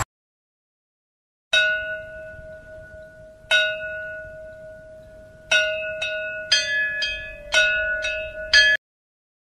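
A metal bell struck nine times, each stroke ringing on at the same pitch: two slow strokes about two seconds apart, then quicker strokes about half a second apart, cutting off suddenly after the last.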